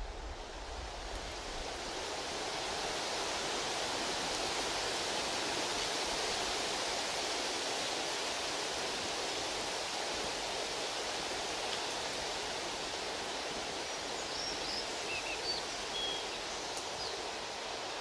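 Steady rushing water noise, even and unbroken, fading in over the first couple of seconds. A few faint high chirps come in near the end.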